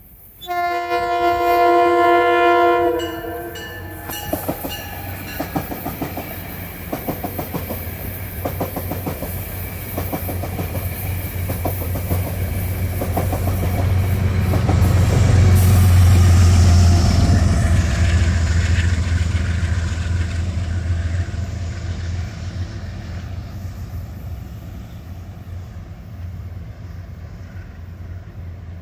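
Metro-North Shoreliner cab car sounding one long, loud horn blast of several tones together for about two and a half seconds. The train then passes, its wheels clicking rhythmically over the rail joints under a deep rumble that is loudest about halfway through and then fades as the train moves away.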